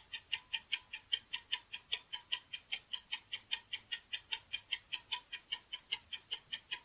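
Fast, even clock-ticking sound effect of a countdown timer, about five ticks a second.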